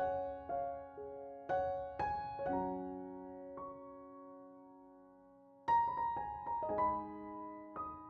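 Background music: slow, gentle piano, single notes and chords struck and left to ring and fade, with a lull in the middle before a new group of notes.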